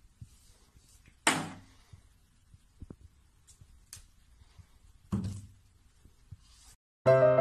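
Plastic toiletry bottles knocked over by a cat's paw on a bathroom shelf: two sharp knocks about four seconds apart, each fading quickly, with a faint tap between them. Piano music starts right at the end.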